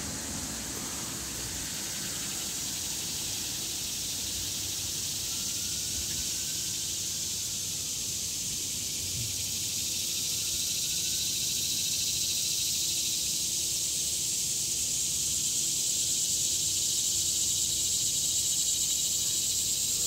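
A chorus of annual cicadas singing in the trees: a steady, high-pitched buzzing hiss that grows slightly louder over the second half.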